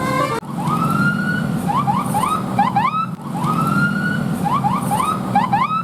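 Bus telolet 'basuri' multi-tone horn playing a siren-like pattern: a long rising whoop followed by a run of quick rising chirps, played twice over a low engine drone. It opens with the last notes of a stepped horn melody that cuts off abruptly.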